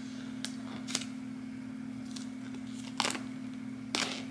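Thin plastic tear strip being pulled off the seal of an iPad Pro box: a few sharp crackles of plastic, the loudest two near the end, over a steady low hum.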